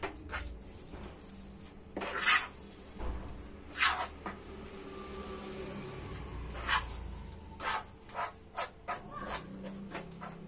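A spatula stirring a thick paste of milk powder, paneer and ground sesame in a nonstick kadhai, scraping and knocking against the pan in irregular strokes. The loudest strokes come about two and four seconds in, with a quicker run of strokes near the end.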